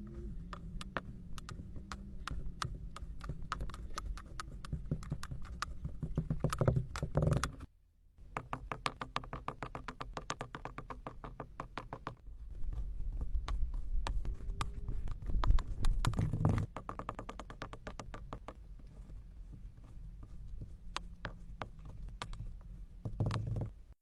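Kinetic sand being handled: a dense run of crisp ticks and soft taps, several a second, with a brief break about eight seconds in.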